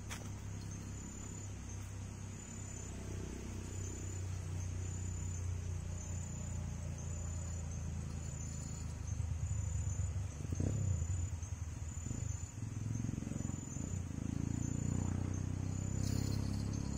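Insect chirping: a short, high-pitched note repeating about once a second, over a low, uneven rumble that grows louder in the second half.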